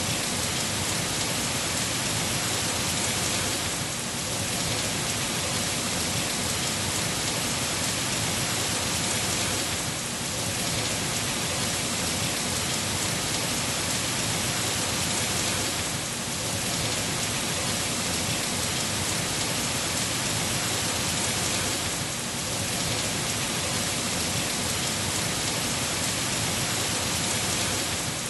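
Heavy rain pouring down, a dense, even hiss with a slight dip in loudness about every six seconds.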